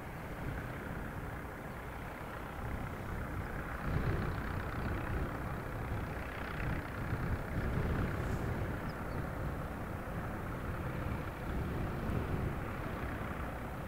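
Vintage tractor engines running in a passing convoy, a low steady rumble that swells about four seconds in and again around eight seconds.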